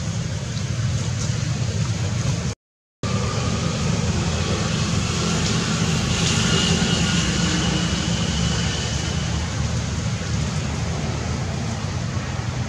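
Steady low rumbling outdoor background noise. It cuts out completely for a moment about two and a half seconds in, and a faint thin high whine sits over it for a few seconds near the middle.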